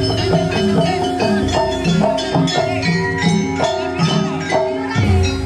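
Jaranan Buto accompaniment music: a Javanese gamelan-style ensemble of struck metallophones and drums playing a busy, steady rhythm.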